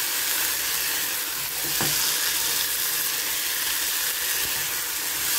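Diced beef, onion and corn frying with a steady sizzle in a saucepan as a spatula stirs through them, with one light tap about two seconds in.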